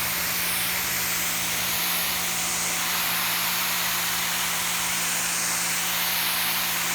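Electric pressure washer of about 1,750 PSI running, its water jet spraying onto concrete with a steady hiss over a steady motor hum.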